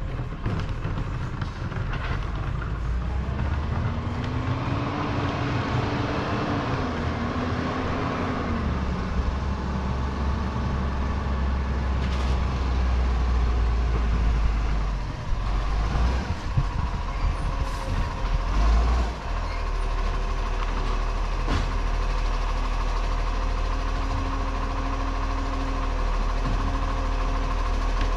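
Green-waste garbage truck's diesel engine running down the street, its pitch rising and falling a few seconds in, then settling into a steady rumble with a faint whine. A few knocks partway through.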